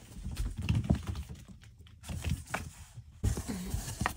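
Kittens scuffling about, their paws making irregular soft taps and thumps on the surface under them.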